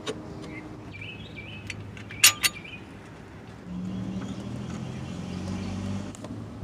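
Birds chirp faintly and two sharp metallic clicks come close together, the loudest sounds, about two and a half seconds in. Then an engine starts up and runs as a steady low hum.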